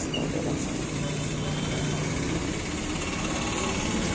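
Steady hum of a vehicle engine running, over general street noise.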